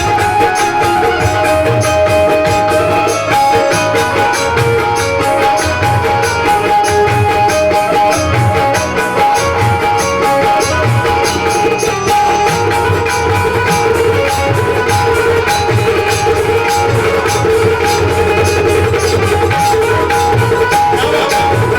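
Live Bhojpuri folk music from a stage band playing a sohar: percussion keeps a quick, even beat under sustained held notes.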